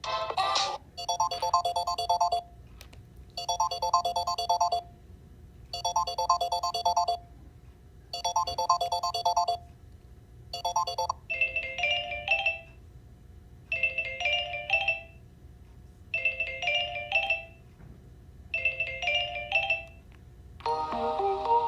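Samsung Galaxy S9 ringtones playing. A short chiming phrase repeats about every two and a half seconds and is cut off about eleven seconds in. A different short phrase then repeats four times, and a new, fuller melody begins near the end.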